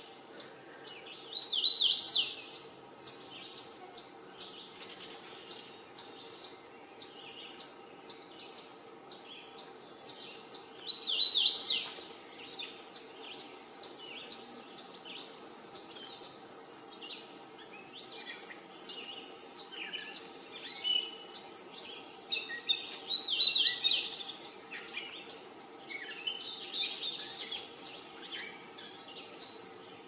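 Yellow warbler singing its short, bright song three times, about ten seconds apart, each phrase rising at the end. Other birds call more busily in the second half, over a steady run of short ticks about twice a second.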